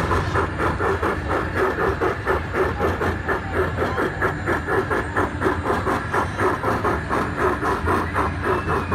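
Garden-scale model Rio Grande steam locomotive chuffing steadily, about four chuffs a second, as it runs along the track pulling freight cars.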